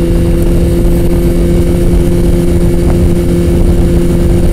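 Motorcycle engine running at a steady cruise, its pitch holding constant, with wind buffeting the helmet microphone.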